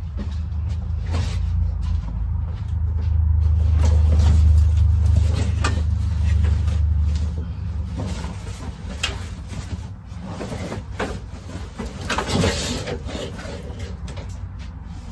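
Repeated knocks, clunks and scraping, with a steady low rumble underneath that stops about halfway through.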